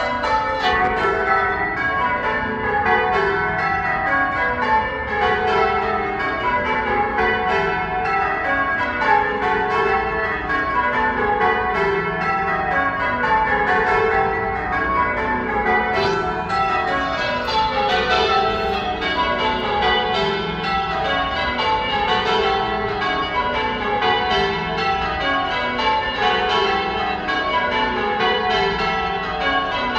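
A ring of church bells rung one after another in repeating rows, each row stepping down in pitch from the highest bell to the lowest, carrying on steadily.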